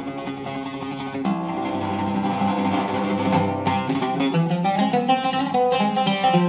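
Solo cedar-topped oud played with plucked strings in an improvised passage in a maqam. Held notes give way to a quicker run of notes, growing louder toward the end.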